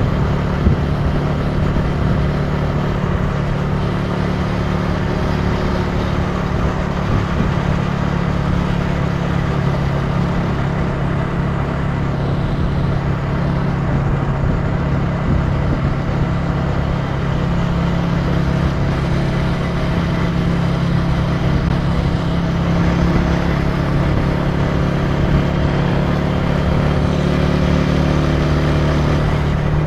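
Italika TC300 motorcycle engine running at a steady cruising speed under a continuous rush of wind and road noise.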